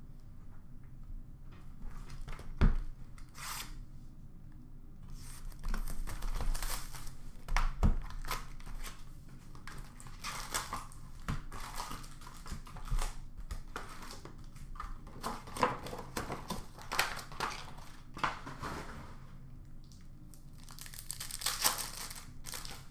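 Trading-card pack wrappers being torn open and crinkled by hand, with cards rustling as they are handled. A couple of sharp knocks come about 3 s and 8 s in.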